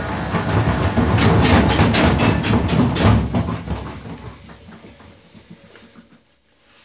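Samsung WF80F5E0W4W front-loading washing machine spinning a very unbalanced load and coming down from speed: the drum rumbles and the cabinet knocks hard, about five knocks a second, for a few seconds, then the rumble fades as the drum slows.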